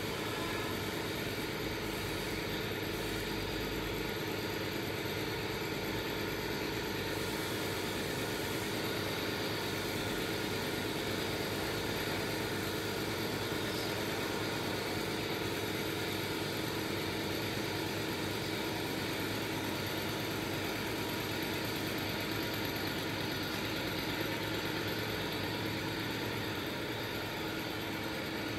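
A machine running steadily, an unchanging mechanical drone.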